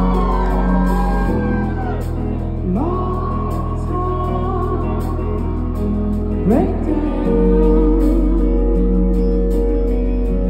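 Live rock band playing a slow song with a singer, recorded loudly from within the concert crowd.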